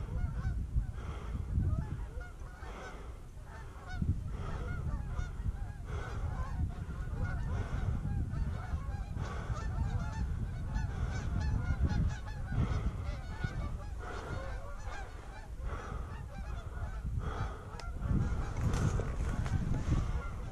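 A flock of Canada geese honking, many calls overlapping without a break, over a steady low rumble on the microphone.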